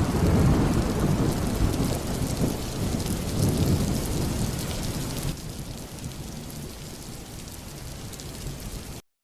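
Heavy rain with rolling thunder, most likely a sound effect for the intro. The rumble swells twice in the first four seconds, the rain turns lighter after about five seconds, and then it all cuts off abruptly.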